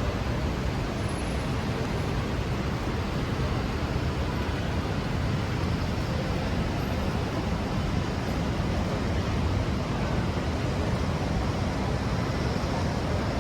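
Steady city street traffic noise in the rain: an even, continuous hiss over a low rumble, with no single event standing out.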